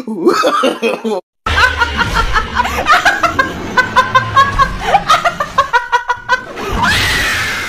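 A woman laughing hard in quick, repeated bursts, starting about a second and a half in.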